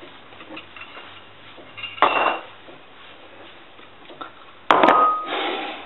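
Ceramic bowls and a fork clinking on a kitchen counter: one light clink with a short ring about two seconds in, then a louder knock with a brief ringing clatter near the end as a bowl is set down.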